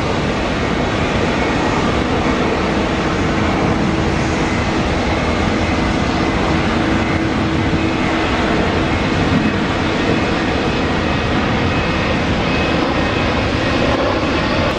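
Jet engines of a McDonnell Douglas DC-10 airliner running loud and steady during the landing rollout, with a low hum under the noise that fades about two-thirds of the way through.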